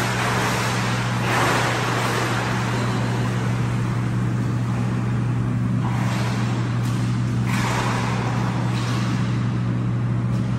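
A steady low machinery hum fills the indoor pool room. Over it comes the swish and splash of a swimmer's strokes, swelling and fading irregularly.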